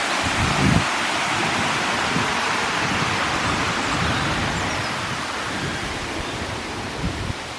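Steady outdoor rushing noise with irregular low rumbles, easing off slightly near the end.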